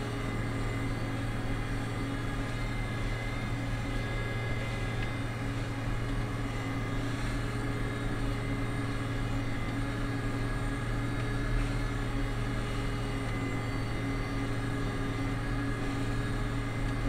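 International 7288 2+2 tractor's 466 diesel engine running steadily under load while pulling a six-bottom plow, heard from inside the cab as a constant drone that holds one pitch throughout.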